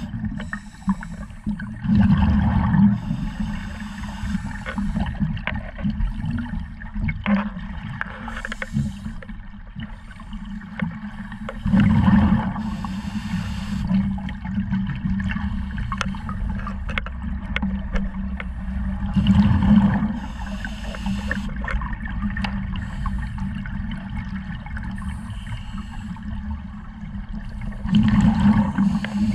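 Scuba diver breathing underwater through a regulator: four loud gurgling bursts of exhaled bubbles, several seconds apart, with fainter regulator hiss between them, over steady low background noise.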